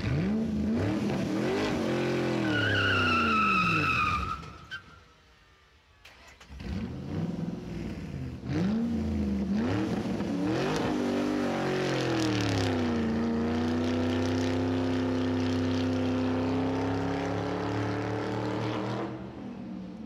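Car engine revving up and down, with a falling tyre squeal about two to four seconds in. After a short break it revs again, then holds a steady, slowly rising note for several seconds before dropping away near the end.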